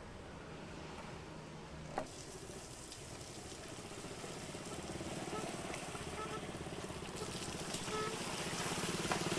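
Outdoor street ambience: a motor vehicle's engine hums and grows gradually louder over the last few seconds, with a single sharp click about two seconds in.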